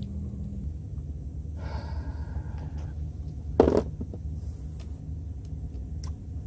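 Steady low outdoor rumble, with a faint drawn-out pitched sound about two seconds in and a single sharp knock about three and a half seconds in.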